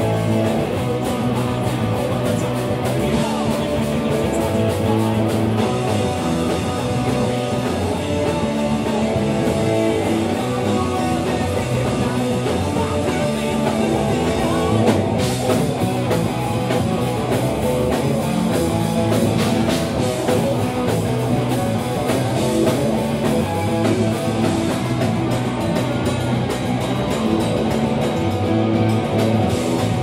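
Rock band playing live: electric guitars over a drum kit, steady and loud.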